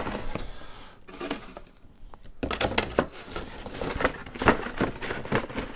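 Cardboard packaging handled by hand: box flaps and inserts rustling and scraping, with a run of short sharp knocks and scrapes in the second half.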